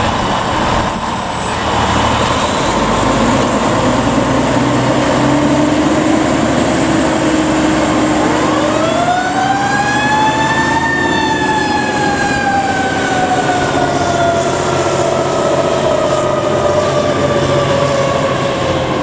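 Federal Q mechanical siren on a fire ladder truck winding up about eight seconds in, peaking a few seconds later, then slowly coasting down in pitch. Under it the truck's engine runs steadily.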